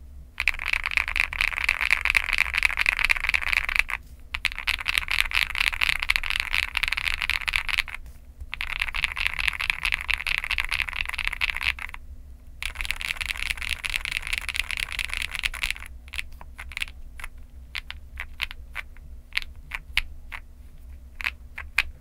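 Fast typing on an iNKC65 aluminium-case 65% mechanical keyboard with Starfish Princess switches and Cherry-profile dye-sub PBT keycaps. The keystrokes come in four dense runs with short pauses between them, then slow to scattered single key presses for the last few seconds.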